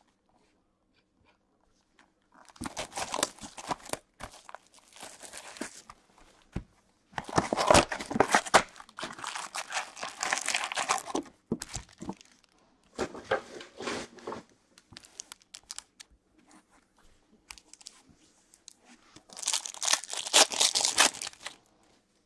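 A cardboard trading-card retail box torn open and its foil packs handled and ripped open: several bursts of tearing and crinkling with pauses between, the longest in the middle and another near the end.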